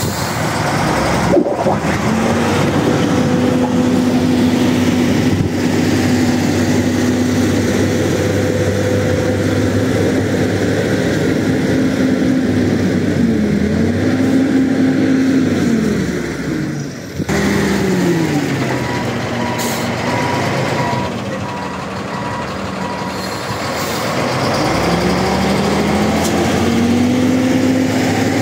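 Diesel engine of a wheel loader running and revving, its pitch rising and falling several times. After a break about 17 seconds in, a vehicle engine revs up and down again, with a repeated high beep for several seconds.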